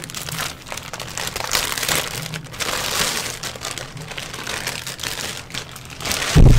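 Clear plastic packaging bag crinkling and rustling as a microphone boom arm is pulled out and handled, with a dull thump near the end.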